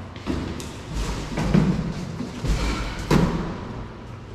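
Three or four dull thuds about a second apart, over background music.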